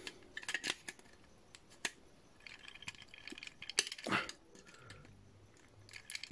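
Faint scattered clicks and scrapes of needle-nose pliers gripping and working a pin out of a plastic Transformers figure, with one sharper click near four seconds in.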